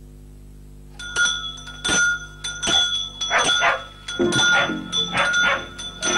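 Dogs barking over and over, starting suddenly about a second in, with a steady high ringing tone running under the barks.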